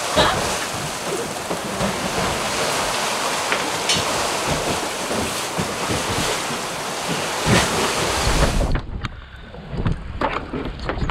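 Heavy rain and strong wind on a sailing catamaran's enclosed cockpit, a dense steady hiss. About nine seconds in it changes to wind rushing over the microphone on deck, with a low rumble of the sea washing past the hull.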